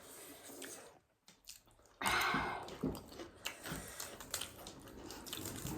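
Quiet eating sounds: chewing with soft wet mouth noises and small clicks. There is a brief near-silent gap about a second in.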